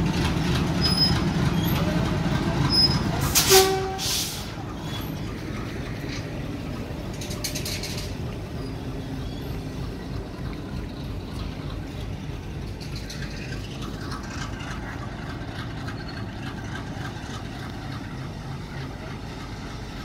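Diesel work train of cable-drum wagons rolling past on the rails, its wheels and engine rumbling loudly at first, then quieter and steady as it moves away. A brief loud burst comes about three and a half seconds in.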